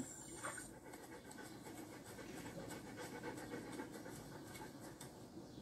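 German Shepherd dog panting softly, a quick, even run of breaths.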